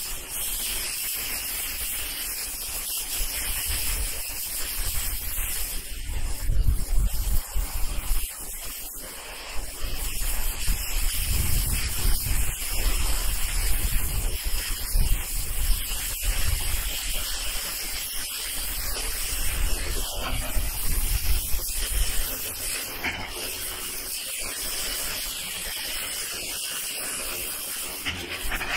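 Ryobi 1600 psi electric pressure washer's turbo nozzle blasting a water jet onto moss-covered asphalt roof shingles: a steady hiss of spray, with a low rumble that swells at times.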